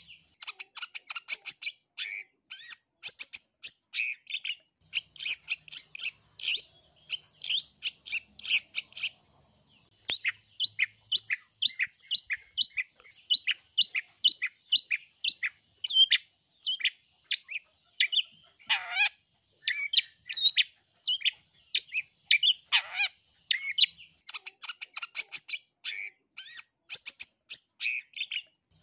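Long-tailed shrike (cendet) singing a fast, chattering song of short chirps in quick succession. Midway it settles into an even run of repeated notes, about three a second, and twice it gives a longer harsh call that drops steeply in pitch.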